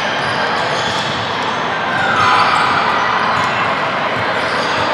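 Basketball being dribbled on a hardwood gym floor during a game, with players' and spectators' voices echoing in the hall; a louder shout about two seconds in.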